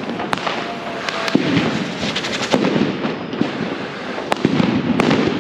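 Firecrackers going off in a dense run: sharp bangs come irregularly, several loud ones a second apart, over a continuous crackle of smaller reports.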